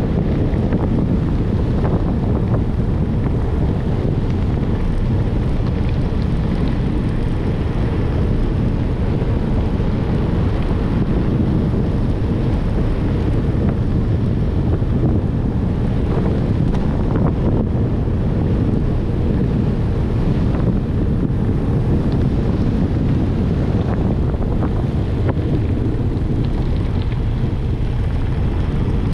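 Wind buffeting the microphone of a handlebar-mounted camera on a bicycle ride: a loud, steady low rumble.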